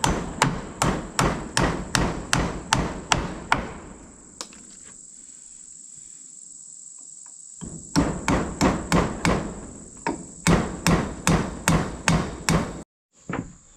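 Hammer driving nails into a wooden 4x4 porch support post: three runs of sharp blows at about three a second, the first run of about ten blows, then a pause of several seconds before two shorter runs. Insects chirr steadily behind.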